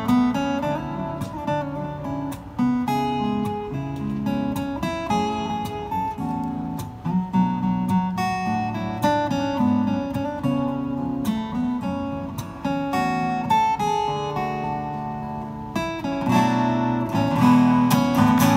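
Two acoustic guitars playing an instrumental duet, a picked melody over strummed chords, growing louder near the end.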